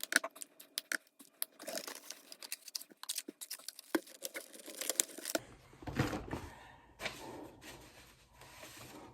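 Quiet rustling and crackling of paper cards being handled, with many small scattered clicks. About five seconds in, a low steady hum comes in underneath.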